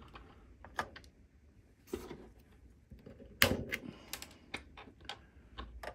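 Scattered light clicks and knocks of small metal screws being picked up and handled against the metal frame of a resin-printer vat, the loudest knock about three and a half seconds in.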